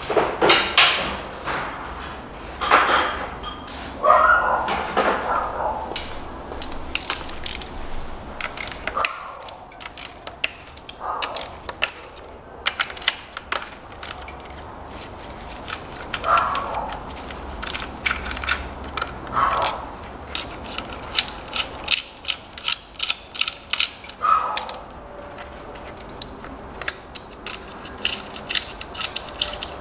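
Ratchet wrench with a 10 mm socket clicking in quick runs as the ignition coil hold-down bolts are undone, with a few short higher-pitched squeaks in between.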